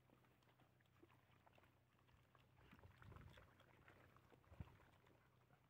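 Faint wet chewing and lapping of several dogs eating soft food from a tub, with many small clicks and one sharper knock about four and a half seconds in.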